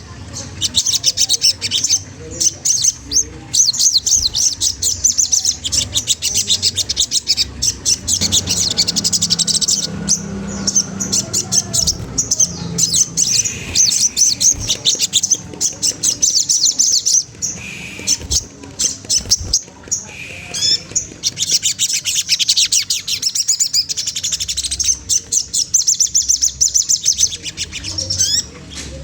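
Sogon trotol (streaky spiderhunter-type sunbird) calling: long runs of rapid, high-pitched chattering chirps, used as a lure call to provoke rival birds into singing. The chatter drops out twice in the middle and comes back strong near the end.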